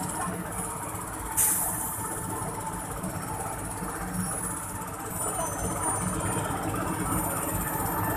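Heavy vehicle engine running steadily with a low rumble, with a short sharp hiss about a second and a half in.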